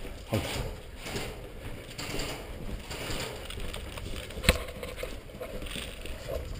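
Footsteps and gear shuffling on a gritty concrete floor, with one sharp click about four and a half seconds in.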